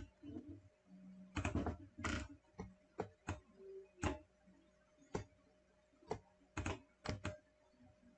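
Faint clicking and tapping of a computer mouse and keyboard: about a dozen separate, unevenly spaced clicks while drawing in drafting software.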